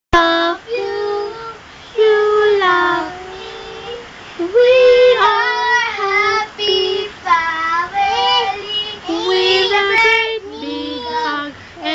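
A child singing without accompaniment, a high voice holding and sliding between notes in short phrases.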